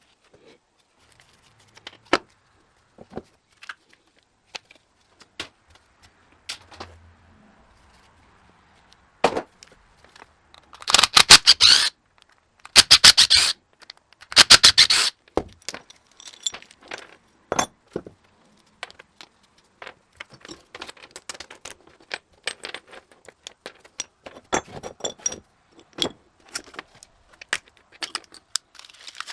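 Small metal pump parts and hand tools clinking and knocking during a teardown, with three loud bursts of rapid clicking a little before halfway, then steady light clinking.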